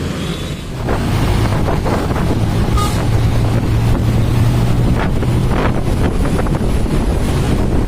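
Vehicle engine running with a steady low hum and road noise, getting louder about a second in, with wind buffeting the microphone.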